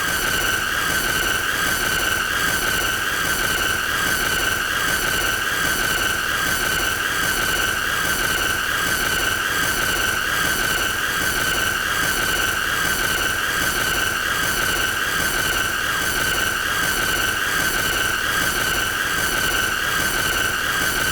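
A steady, high-pitched squealing tone that does not change, with a faint regular pulsing in its upper part: a deliberately annoying looped sound effect.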